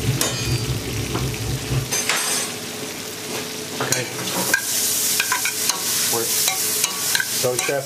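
Sliced onions, mushrooms and leek sizzling in melted butter in a pot while being stirred, sweating off as the base vegetables for a fish stock, with scattered knocks of the utensil against the pot. The sizzle grows stronger about halfway through, and a low background hum stops about two seconds in.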